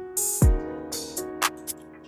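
Background music with a beat: held chords, sharp drum hits, and a deep booming kick that drops in pitch about half a second in.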